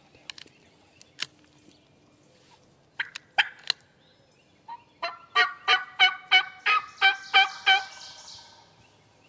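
Turkey yelping: two or three sharp notes about three seconds in, then a run of about nine loud yelps, roughly three a second, ending about eight seconds in.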